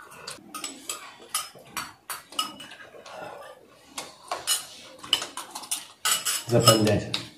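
Metal spoons repeatedly clinking and scraping against small ceramic bowls as food is eaten fast. Near the end comes a short, louder burst of a person's voice.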